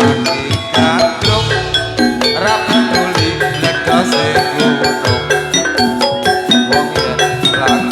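Javanese gamelan music for a jathilan dance: bronze metallophones and gongs struck in a fast, even rhythm, with drums.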